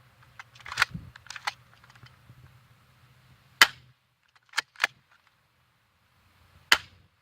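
Spring-powered BB pistol being cocked and fired: about six sharp snaps and clicks, the loudest a little over three seconds in and another near the end. The pistol needs cocking twice before it will fire, which the shooter puts down to something wrong with its spring.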